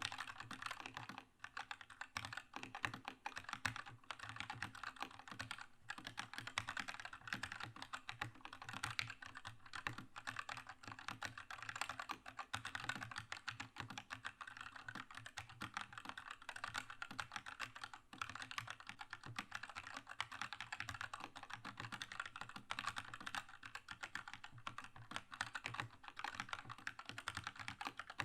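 Keychron K2 mechanical keyboard with red linear switches being typed on continuously at a fast pace, a dense unbroken stream of key clacks.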